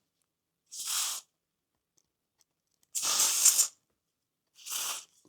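Three short hissing squirts from an aerosol spray can, the middle one longest and loudest, flushing old lubricant out of a model locomotive's drive axle gears.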